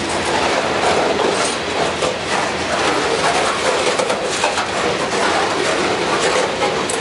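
Freight train of open-top coal hopper cars rolling past at close range: a steady rumble of steel wheels on rail, with clicking as the wheel trucks pass over the rail joints.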